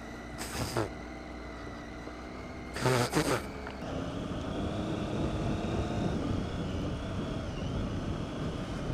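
Triumph Tiger 800 XC's three-cylinder engine running steadily at low trail pace, heard from a helmet-mounted camera. About four seconds in it gets louder and stays up as the throttle opens.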